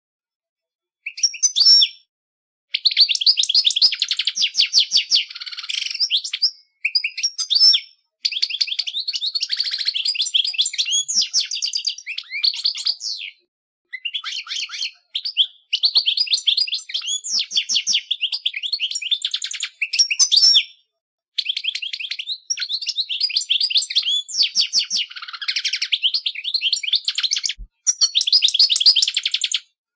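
Goldfinch singing: long phrases of rapid, high twittering notes, each run lasting several seconds with short pauses between.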